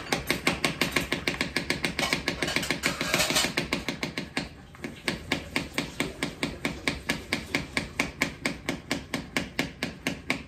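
Plunger of a French-press-style milk frother pumped rapidly up and down to whip milk into foam, knocking about five times a second, with a brief hiss about three seconds in.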